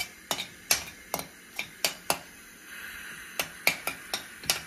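Homemade butter crackling and popping in a hot pan with cinnamon bark: about a dozen sharp, irregular pops, with a soft sizzle rising underneath a little over halfway through.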